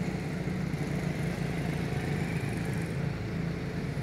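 A steady, low engine drone, like a motor vehicle running.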